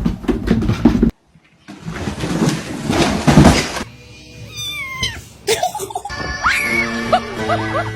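Several short clips in a row: rough noisy handling sounds, then a cat meowing in gliding calls over background music in the second half.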